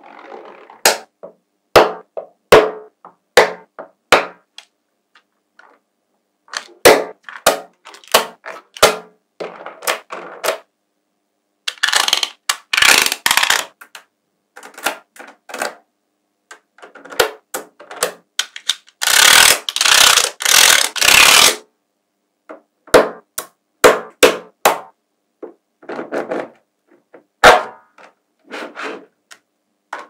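Small magnet balls clicking sharply together as slabs of them are pressed onto a stack, in irregular bunches of clicks. Twice, once a little before halfway and again about two-thirds through, a longer gritty scraping as the balls are rubbed and slid over one another.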